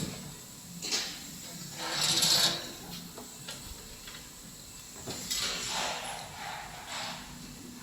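Hard parts scraping and sliding against each other as a device's casing is handled and taken apart, in irregular rubs: a short one about a second in, a longer hissing scrape about two seconds in, and several more between five and seven seconds.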